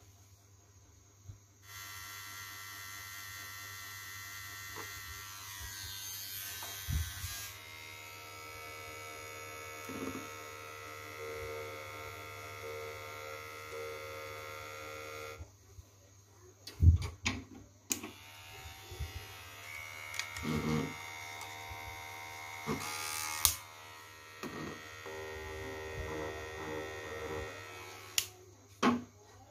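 Cordless electric hair clippers running with a steady buzz, switched on about two seconds in and off about halfway through. A few sharp knocks follow, then the clippers run again until shortly before the end.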